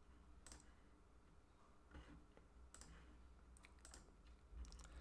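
Faint computer mouse clicks, several scattered short clicks, over a low steady room hum.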